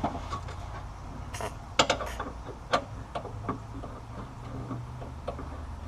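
Ratchet wrench clicking in short, irregular strokes as it turns a long rear shock mounting bolt.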